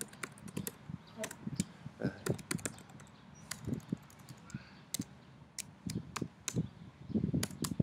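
Typing on a computer keyboard: uneven runs of key clicks with short pauses between them.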